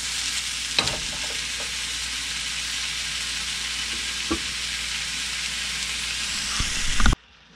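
Diced porcini mushrooms sizzling steadily in olive oil in a frying pan, with a few light knocks. The sizzle cuts off suddenly near the end.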